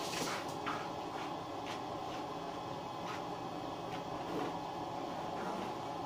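Scattered light wooden knocks and clunks, about half a dozen, as plywood pieces of a box frame are handled, over a faint steady hum.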